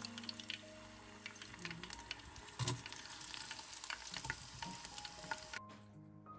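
Panko-breaded chicken strips deep-frying in a pot of hot oil: a dense crackling sizzle with scattered pops as the golden-brown pieces are lifted out with metal tongs, and one louder knock about two and a half seconds in. The sizzle cuts off suddenly near the end, leaving soft background music.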